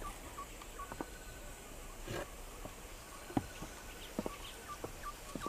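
Faint forest ambience: short high chirps repeating every few tenths of a second, with a few scattered light knocks.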